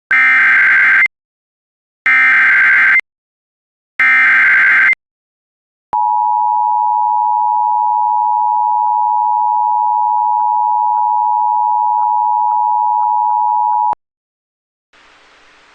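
Emergency Alert System SAME header on NOAA Weather Radio: three one-second bursts of screechy digital data tones about a second apart, then a steady attention tone for about eight seconds, marking the start of a test alert. Faint radio hiss comes in near the end.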